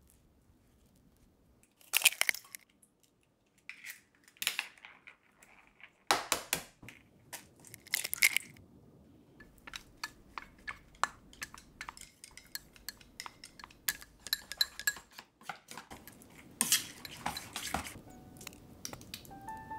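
Kitchen food-prep sounds: a knife scraping jam across slices of bread in a few strokes, then a long run of short clinks and taps of utensils and food against a stainless steel bowl, with another scraping burst near the end.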